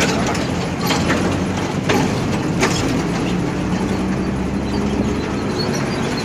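Auto-rickshaw riding along, heard from inside its open passenger cabin: a steady engine hum with road noise, and a few sharp clatters in the first three seconds.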